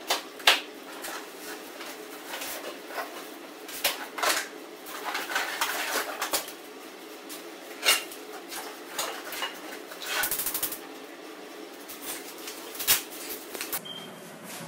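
Small cups, a spoon and other game pieces knocked and set down on a table: an irregular string of clicks and light knocks.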